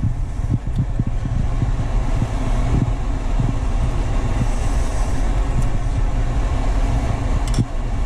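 Steady low rumble with a few light metallic clicks as long metal tongs lift pieces of boiled maktak out of a large stainless stockpot, about a second in, around the middle and twice near the end.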